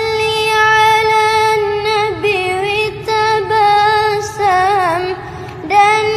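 A young boy singing sholawat solo, with no accompaniment, in a high unbroken voice. He holds long, ornamented notes that waver and glide, with a few short pauses for breath between phrases.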